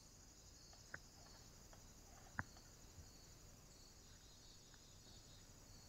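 Near silence: a faint, steady, high insect-like chirring, broken by two sharp clicks about one and two and a half seconds in, the second louder.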